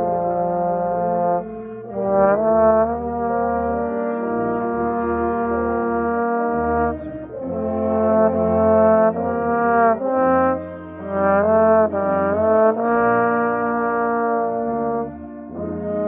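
Trombone played close up: long held notes that change pitch, broken by short breaths, with other band instruments sounding together with it in the same passage.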